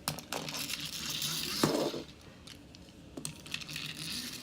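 Plastic toy motorbike being handled and pushed along a surface: clicks and a rushing scrape from its wheels, with a sharp knock a little under two seconds in, then a few lighter clicks. It is being tried for a wheelie.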